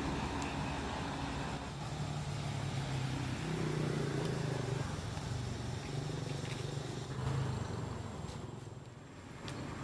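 A motor vehicle engine running in the background, a steady low drone whose pitch shifts up and down a little, dropping off somewhat near the end.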